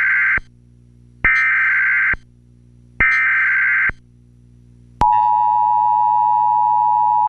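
US Emergency Alert System tones: three bursts of high-pitched data tones, each about a second long, with short gaps between them. Then, about five seconds in, the steady two-tone attention signal begins and holds until it cuts off abruptly.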